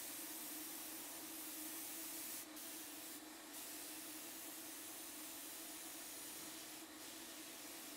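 Paint spray gun fed by an air hose, spraying a coat of paint with a steady hiss and a steady low hum underneath. The spray breaks off briefly a few times between passes.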